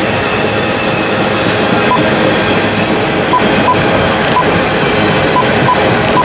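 Freight train of refrigerated boxcars rolling past, a steady rumble of steel wheels on rail with a few sharp clicks in the second half.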